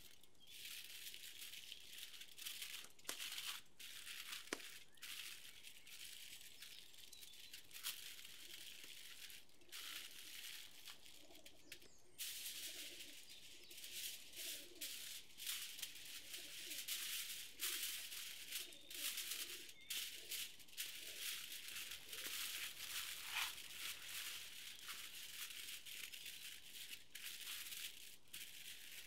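Aluminium foil crinkling and rustling as it is folded and pressed around a whole fish, in many short, irregular crackles.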